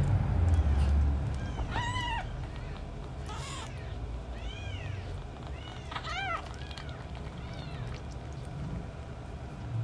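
Very young kittens mewing: a string of short, high, rising-and-falling mews, loudest about two seconds in and again about six seconds in. A low rumble sits under the first second.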